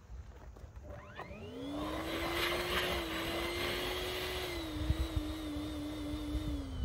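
Small electric air pump inflating a balloon: its motor hum rises in pitch as it spins up about a second in, then holds steady under a rush of air. Over the last two seconds it sags slightly and wavers as the balloon fills.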